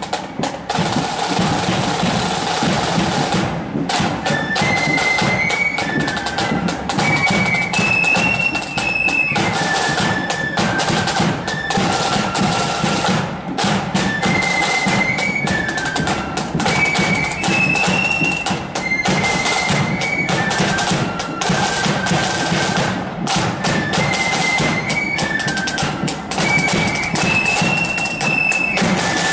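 Marching flute band playing a tune, the flutes carrying a high melody over side drums and bass drum. The melody repeats in phrases of about ten seconds.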